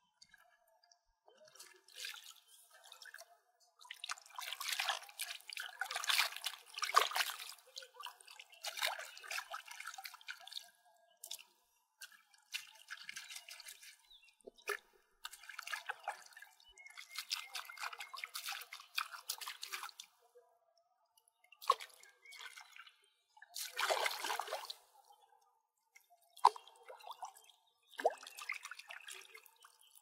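Pond water splashing and dripping as aloe vera leaves are swished and rinsed by hand. It comes in irregular runs of several seconds, with a few single sharp drips near the end.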